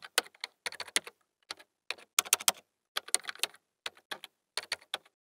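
Keyboard typing sound effect: sharp key clicks in short, irregular runs with brief pauses between them.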